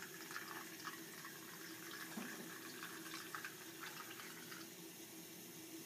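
Water running faintly from a bathroom tap into the sink, with small drips and splashes; it thins out near the end.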